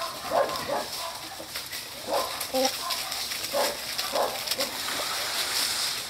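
Chickens clucking in short, low calls while foraging, a few calls every second or so, over a steady high hiss.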